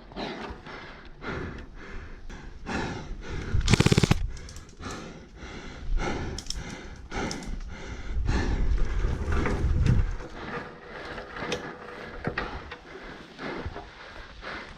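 Airsoft gunfire: a rapid full-auto burst lasting about half a second, roughly four seconds in, with scattered single shots and clicks around it.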